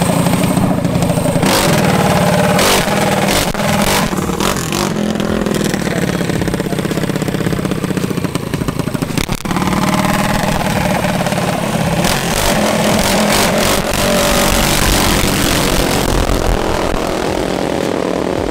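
Racing minibike's small engine spun over with a hand-held drill starter on its crankshaft, then running loud and revving.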